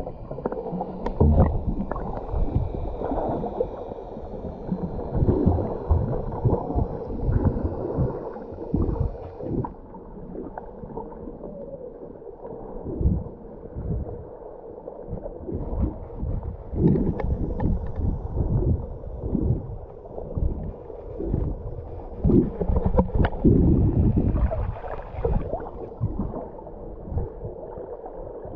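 Muffled underwater sound from a camera held below the sea surface: water gurgling and sloshing, with many irregular dull knocks.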